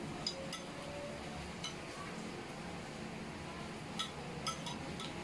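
Metal spoons clinking lightly against glass plates and bowls while eating: a few short clinks near the start, one about a second and a half in, and two more about four seconds in.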